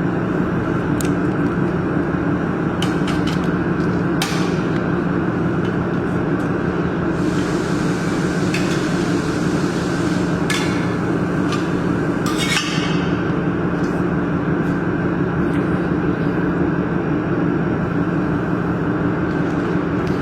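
Steady machine hum, like ventilation or equipment running in a workshop, with a few sharp clicks and knocks scattered through the first two-thirds, like hard objects being handled.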